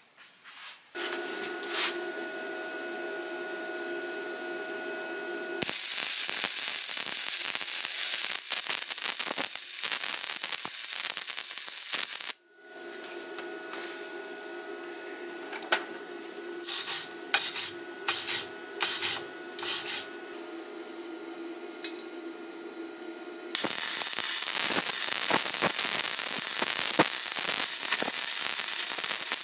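Electric arc welding on a steel exhaust pipe: the arc's steady sizzling crackle in two long runs, about six seconds in and again near the end, with several short tack-weld bursts in between. A steady machine hum sounds whenever the arc is off.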